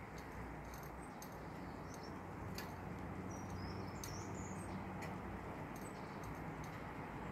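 Steady hiss of a rain shower with irregular sharp ticks of raindrops striking a hard surface. A faint, high, wavering bird twitter comes in about three seconds in and lasts just over a second.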